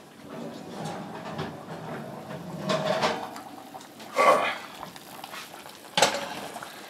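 Heavy cast iron oval roaster being lifted out of the oven and set down: clunks and knocks of the iron against metal. The loudest knock comes about four seconds in, and a sharp clank about six seconds in.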